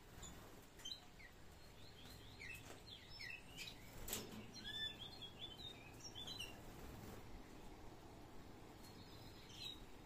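Domestic canaries giving short chirping calls, many in quick succession for the first six seconds or so, then fewer, with a couple more near the end. A single sharp click about four seconds in.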